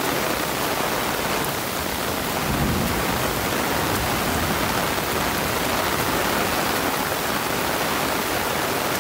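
Heavy rain pouring down in a sudden downpour, a steady, dense hiss of rain falling on leaves and ground. A brief low rumble comes about two and a half seconds in.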